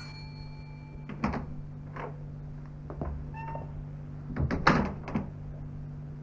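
A doorbell ringing stops about a second in. Then come scattered knocks and thumps, a short high cry about halfway through, and a cluster of louder clattering knocks near the end, all over a steady low hum.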